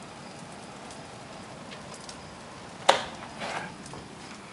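Steady rushing of gusty storm wind, with one sharp knock about three seconds in and a brief rustle just after.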